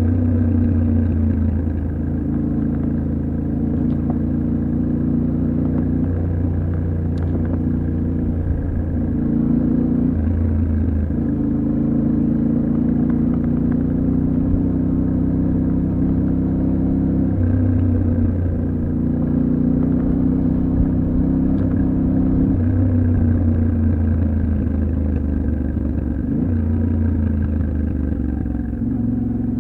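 Yamaha Ténéré 700's 689 cc parallel-twin engine running while ridden off-road. The engine note holds steady for a few seconds at a time, then jumps up or down in pitch several times as the revs change.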